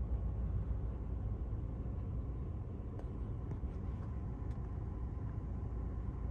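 Steady low rumble of a vehicle idling, with a faint steady tone above it and a few faint ticks.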